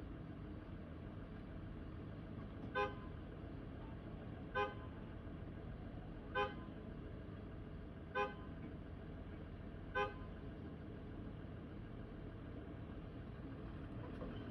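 Diesel school bus idling steadily, a 2008 Thomas C2. Over the idle, a short pitched beep sounds five times, about two seconds apart.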